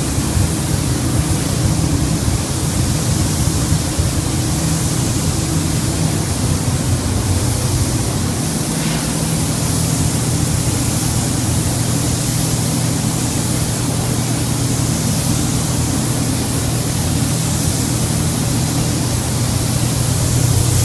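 Compressed-air gravity-feed spray gun hissing steadily as it sprays paint onto a car body, over a steady low hum.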